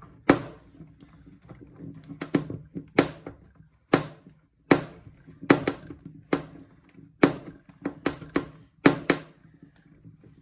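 Irregular sharp clicks and taps, about fifteen over ten seconds, of a screwdriver and metal parts being handled while an old desktop PC is taken apart.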